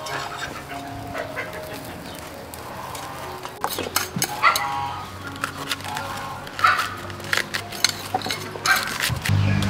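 Soft background music under a run of sharp clicks and knocks from a knife cutting vegetables and from dishes, with a hen clucking a couple of times. A low drone comes in near the end.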